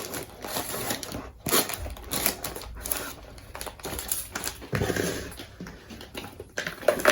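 Paper microwave popcorn bag crinkling and rustling as it is handled, with irregular crackles.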